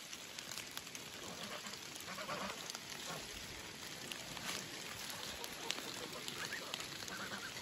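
Faint ambience of light rain falling on a garden, with scattered soft drip ticks. A few faint, distant farm-animal calls come through, more of them near the end.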